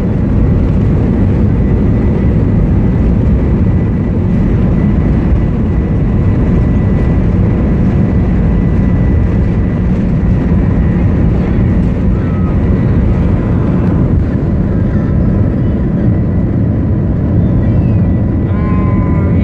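Airliner jet engine running with a steady loud rumble and a thin whine held on one high pitch: the engine noise the uploader calls strange.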